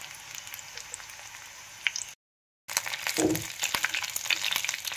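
Green chillies and garlic frying in hot sesame oil in a clay pot: a quiet, steady sizzle with scattered crackles. It cuts out completely for about half a second just after the middle, then returns with the scrape and clicks of a steel spoon stirring the chillies.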